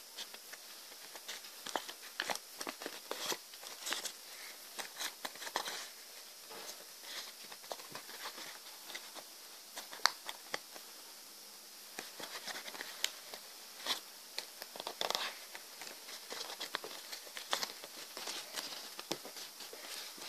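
Origami paper rustling and crinkling as hands fold and crease it: irregular small crackles and ticks, with a few longer rustles.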